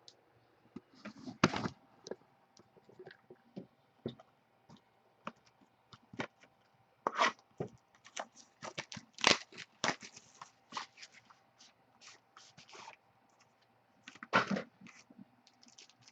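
Trading card packs being opened by hand: wrappers crinkling and tearing, with irregular crackles and scrapes as the cards are handled.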